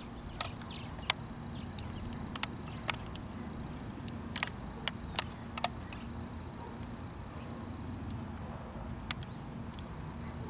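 Steady low rumble of a distant Airbus A340-300's four CFM56 jet engines as it climbs away high overhead. Short sharp clicks are scattered over it, mostly in the first half.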